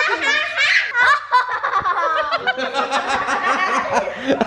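Several people laughing at once, children's high giggles and a man's laughter, in quick repeated bursts.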